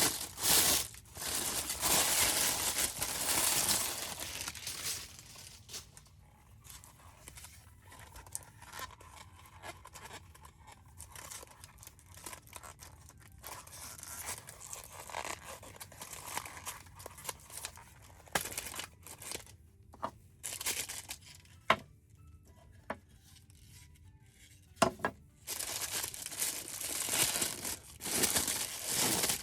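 Plastic Happy Meal toy packaging being torn open and crinkled, loud at the start and again near the end, with quieter handling and a few sharp clicks in between.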